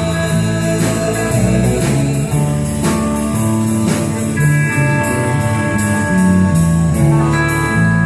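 Country band playing an instrumental passage with guitar, bass and drum kit, no vocals.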